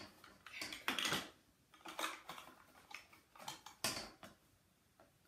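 Small plastic toy blocks clattering and knocking together as they are scooped by hand out of a balance scale's hanging bowl, in a handful of separate rattles with short pauses between.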